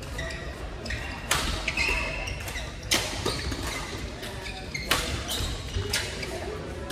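Badminton rackets striking a shuttlecock in a rally: four sharp cracks about a second or two apart, echoing in a large hall.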